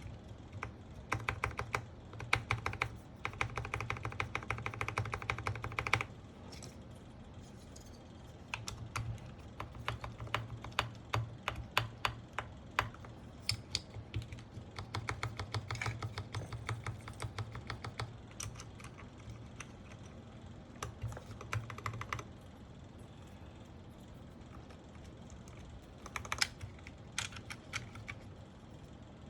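Mechanical keyboard, a Sky87 with Gateron Pro Milky Yellow switches, being typed on in fast runs of keystrokes with short pauses between them.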